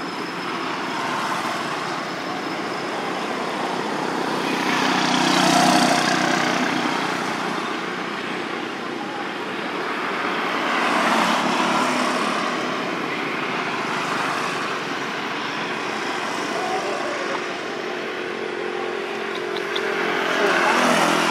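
Outdoor background of road traffic: a steady hum of passing vehicles, swelling as one goes by about five seconds in, again around eleven seconds and near the end.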